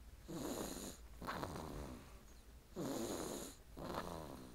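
A sleeping baby snoring very loudly, worn out and deeply asleep: four snores in two close pairs.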